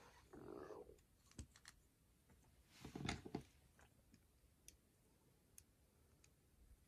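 Plastic Lego pieces clicking and clacking as they are handled and pressed together. There is some rustling in the first second, and a louder cluster of clacks about three seconds in.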